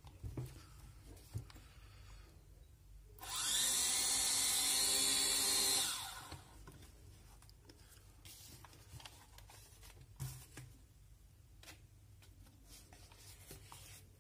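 Small electric motors and propellers of a toy RC VTOL plane whirring steadily for about three seconds, starting suddenly a few seconds in and fading away. Light handling clicks and taps before and after.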